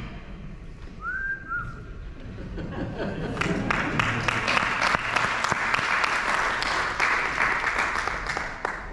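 Two short, arching whistles from an audience member about a second in. Then an audience breaks into applause about three and a half seconds in, clapping steadily until it dies away near the end.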